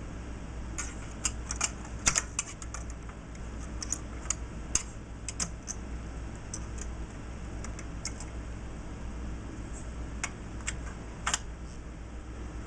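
Irregular small clicks and taps of a synthesizer front panel being worked down over the pots, rotary switches, toggle switches and jacks of its circuit boards, with a busy cluster about two seconds in.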